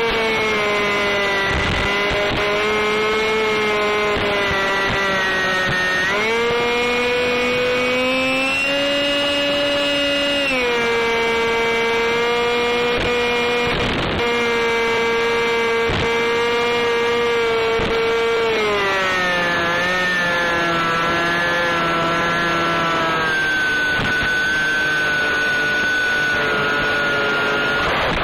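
Motor and propeller whine of a UM Stryker micro FPV plane, heard through its onboard camera's microphone, the pitch stepping up and down several times with throttle changes. A steady hiss lies under it, with a few brief crackles where the video link breaks up.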